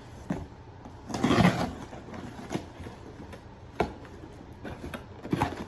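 A cardboard delivery box being opened and handled by hand: a short burst of scraping packaging noise about a second in, then a few scattered knocks and taps.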